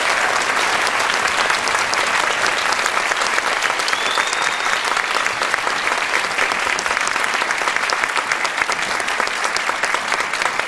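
An audience applauding: a dense, steady clatter of many hands clapping that eases off slightly near the end.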